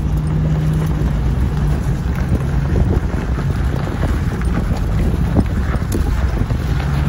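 Off-road vehicle engine running with a low, steady drone, and wind buffeting the microphone at an open vehicle window.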